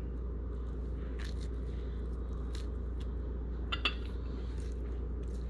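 Hands tearing cooked lobster meat into smaller pieces: a few faint soft clicks and squishes over a steady low background hum.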